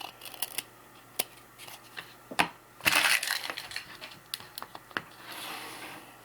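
Foil trading-card pack wrapper being torn open and crinkled, with light clicks and taps of cards being handled. A sharp snap and a loud burst of crinkling come about two and a half to three seconds in, and a softer rustle near the end.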